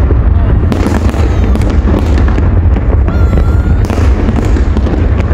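Fireworks display: aerial shells bursting in a rapid, continuous barrage of bangs and crackles over a heavy low rumble.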